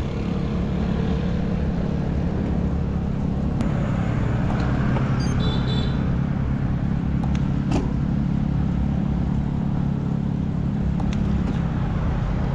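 A motor vehicle's engine running steadily close by, over road and wind noise, with a few brief clicks in the middle.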